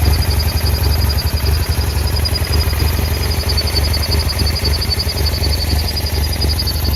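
BMW F800GS's parallel-twin engine idling unevenly, its loudness wavering irregularly: a very rough idle caused by one torn idle vacuum hose and another broken off the air box spigot.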